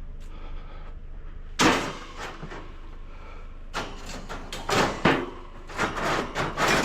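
Scrap items being handled and set down: one loud bang about a second and a half in, then a run of knocks and clattering through the last three seconds.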